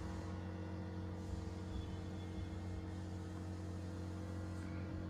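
Steady low electrical hum, a few even tones that hold without change.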